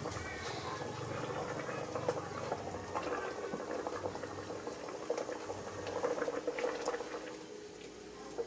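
Water boiling in a stainless steel pot with a slab of pork belly in it, a steady fizzing crackle of small bubbles. A few sharp clicks stand out over it.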